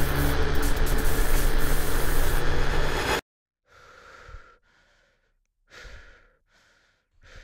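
A loud, dense noise with a low steady hum cuts off abruptly about three seconds in. It gives way to near silence broken by a few short, heavy breaths.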